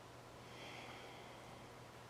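Faint breathy hiss about a second long over a steady low hum: a person breathing out through the teeth in the qigong hissing sound for the lungs.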